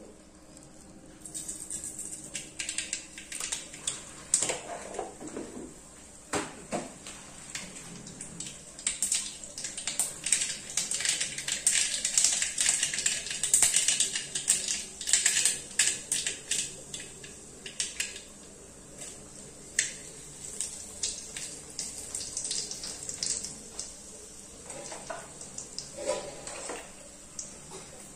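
Mustard seeds popping and spluttering in hot oil in an aluminium kadai while tempering: a dense run of sharp crackles that builds up, is thickest in the middle and then thins out. Near the end a few duller sounds come as dried red chillies go into the oil.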